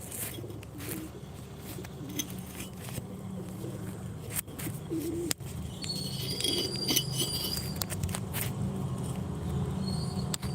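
A few high bird chirps about six to seven seconds in, over a steady low hum and scattered clicks.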